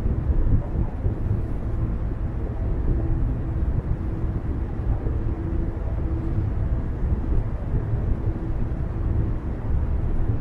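Car driving along a road: a steady low rumble of tyre and engine noise.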